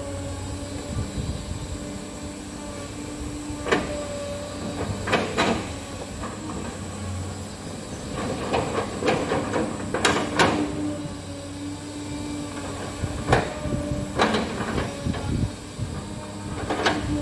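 Cat 320D hydraulic excavator working: its diesel engine and hydraulics run with a steady whine. Sharp metallic clanks and knocks come every few seconds, several bunched together around the middle.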